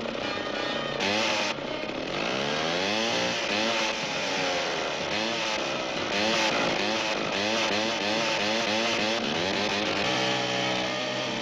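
Cartoon sound effect of a small buzzing motor, like a riding mower's, its pitch swinging up and down over and over. A steadier musical tone comes in near the end.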